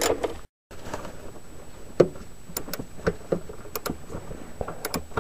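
Socket-wrench ratchet on an extension clicking in short, irregular strokes as a bolt is backed out, with a sharper metal knock about two seconds in.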